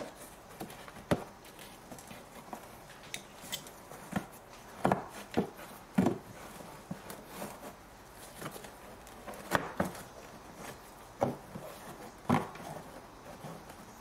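Irregular knocks and clicks of a plastic wheel-arch liner being handled and pulled back by hand, with several louder knocks scattered through.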